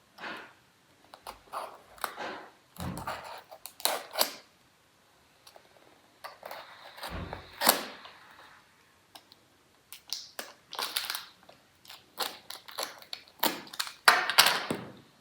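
Packaging being handled and opened: irregular rustles, crinkles and clicks, with a dull knock about three seconds in and another about seven seconds in.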